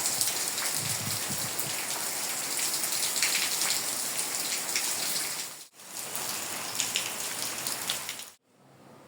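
Steady rain, a dense pattering hiss full of small drop ticks. It cuts off sharply about six seconds in, resumes, and drops away to a faint hiss near the end.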